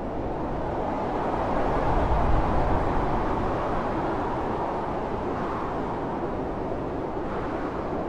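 Blizzard wind blowing hard and steadily, a deep rushing noise that swells into a stronger gust about two seconds in and then eases back.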